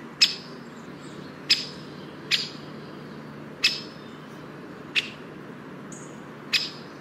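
A bird calling with six short, sharp chips, each sliding quickly downward and spaced a second or so apart unevenly. A steady low hum runs underneath.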